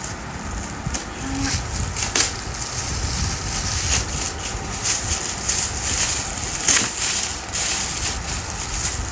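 Shiny metallic gift wrap crinkling and tearing as it is pulled off a boxed present by hand, with a few sharper rips among the steady crackle.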